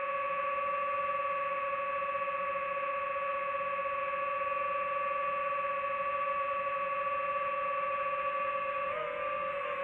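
Drone's electric motors and propellers whining steadily in a hover, heard from on board; the pitch wavers briefly near the end as the craft manoeuvres.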